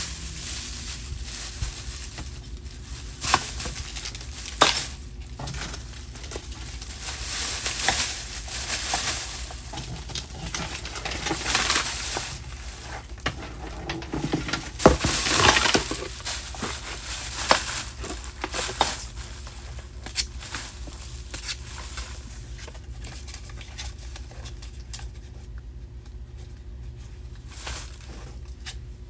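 Objects being handled and sorted: scattered knocks and clinks with stretches of rustling, the busiest stretch about halfway through, over a steady low hum.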